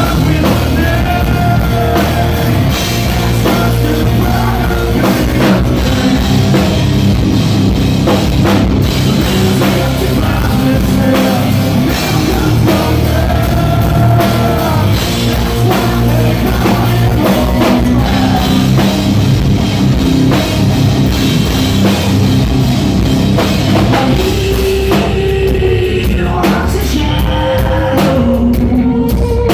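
Rock band playing live and loud: electric guitar, bass guitar and drum kit, with a man singing into a microphone.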